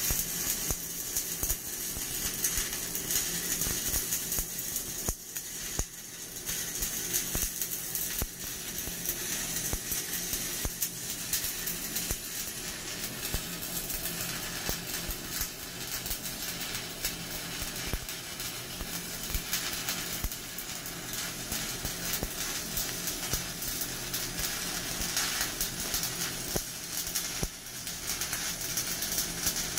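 Shielded metal arc (stick) welding with a 7018 electrode on a vertical plate joint: the arc burns with a continuous crackling sizzle full of fine rapid pops.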